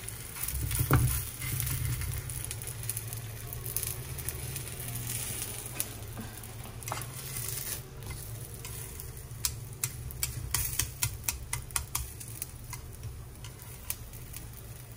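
Aloo paratha cooking in a hot pan on an electric stove with a faint sizzle over a low steady hum. There is a knock about a second in, and a quick run of light metallic clicks in the second half as metal tongs handle the flatbread against the pan.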